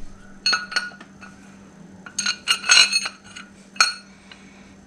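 Steel bolts and a steel mounting bracket from an air spring kit clinking together as they are handled, each clink ringing briefly. There are two clinks about half a second in, a quick cluster around two to three seconds, and one more near four seconds.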